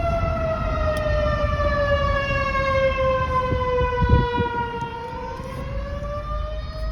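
Distant rotating outdoor warning siren sounding one steady tone during a test. Its pitch sinks slowly for about five seconds, then climbs again. A low vehicle rumble runs underneath.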